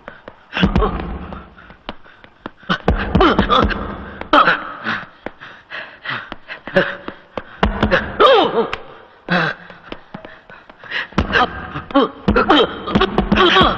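Boxing fight: a rapid string of punches landing as sharp smacks and heavy thuds, mixed with men's grunts, gasps and short cries.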